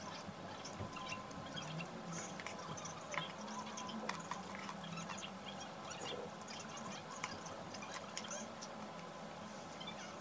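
A spoon scooping thick yogurt from a bowl: soft wet sounds with scattered light clicks of the spoon against the bowl.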